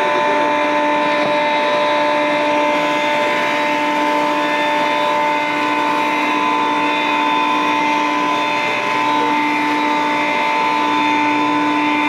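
A motor or engine running steadily: a constant hum with several steady tones under a noisy hiss, unchanging throughout.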